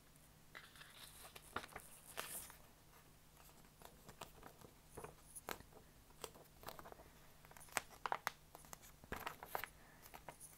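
A sheet of calcium-carbonate mineral paper being flexed, crumpled and pulled apart by hand: faint, scattered crackles and soft tearing sounds, with a few sharper clicks in the second half.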